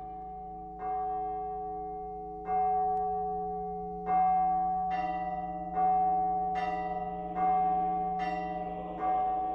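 Church bell struck repeatedly, each stroke ringing on into the next over a steady hum. There are about nine strokes, coming at first about every second and a half and then nearly twice as fast.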